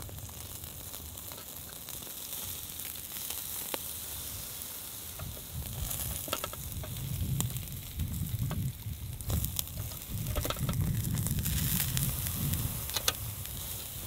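Food sizzling in a pan over a campfire, a steady hiss with scattered sharp pops and crackles. A low, uneven rumble runs underneath and grows heavier about halfway through.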